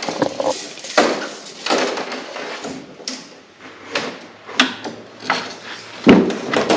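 Scattered knocks, clicks and rattles of sheet material and a straight edge being handled and laid out for marking, with a louder thump about six seconds in.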